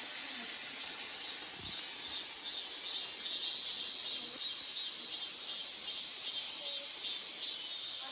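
Insects chirping in a steady rhythm of about three pulses a second, over a constant high hiss.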